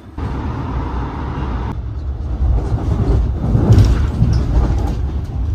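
Airport express train running at speed, heard from inside the carriage: a steady low rumble that comes in suddenly and grows louder from about three seconds in.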